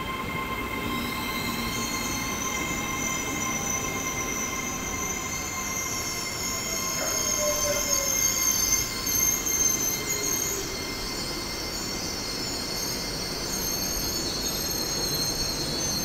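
LNER Azuma train running in along the platform and slowing to a stop, with high brake and wheel squeal and a whine that falls in pitch as it slows.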